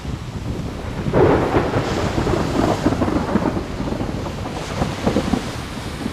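Thunder rolling, swelling about a second in, with rain falling.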